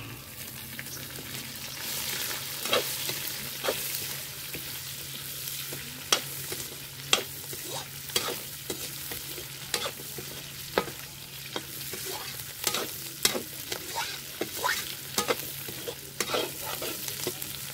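Chopped onions sizzling in hot oil in an iron kadai, stirred with a perforated metal spoon that scrapes and clinks against the pan many times.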